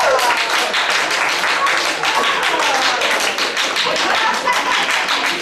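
Group of people applauding, many hands clapping quickly, with voices calling out over the clapping.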